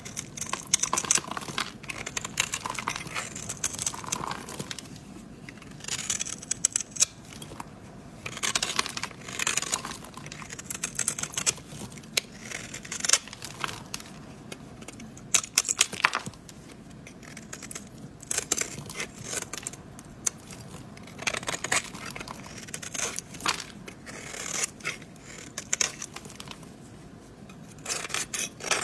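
A blade carving into a bar of soap: crisp, scratchy, crackling cuts in short runs every couple of seconds, with brief pauses between.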